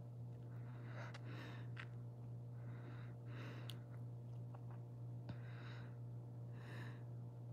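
A person breathing softly close to the microphone: four faint breaths, one every second or two, over a steady low hum.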